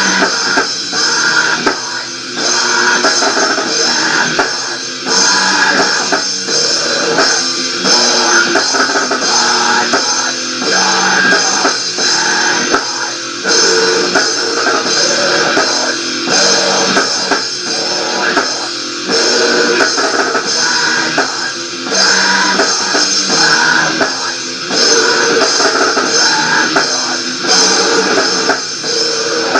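Rock band music from a demo tape: electric guitar over a drum kit, playing continuously, with a thin sound that has almost no bass.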